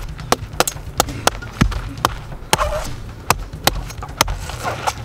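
A machete hacking at a coconut to open it: a quick, irregular run of about a dozen sharp chops, two to three a second.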